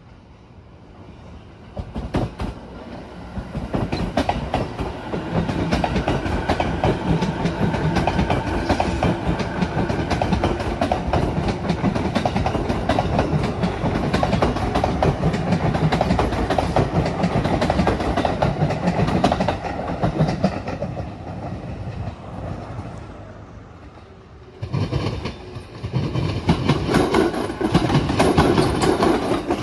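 JR East 209-2100 series electric commuter train running past on the tracks, a steady rumble with wheel clatter that builds about two seconds in and fades in the last few seconds before twenty-four. After a sudden cut, another 209-2100 series train is heard passing, loud again.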